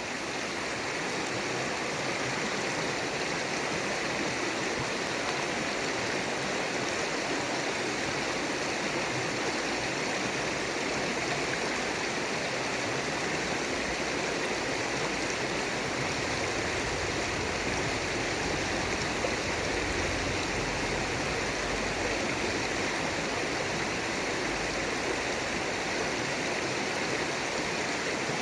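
River water flowing steadily, a continuous even rush with no breaks.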